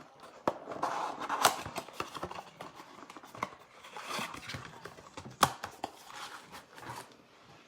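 Trading-card pack wrappers crinkling and tearing and a cardboard blaster box being handled, with a few sharp snaps among the rustling.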